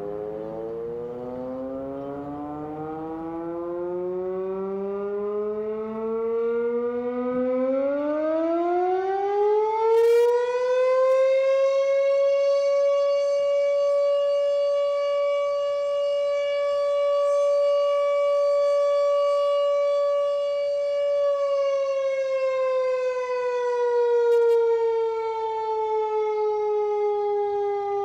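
Mechanical siren winding up slowly in pitch for about ten seconds, holding one steady tone, then slowly winding down again near the end.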